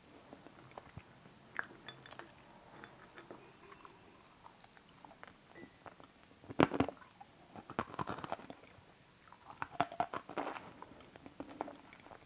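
A person chewing crunchy food, with sharp crunches in loud clusters past the middle and again later.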